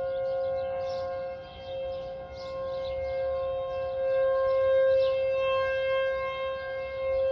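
Outdoor civil defense tornado warning sirens sounding a steady wail, at least two tones held together. The sound swells and fades slowly as the sirens sweep round.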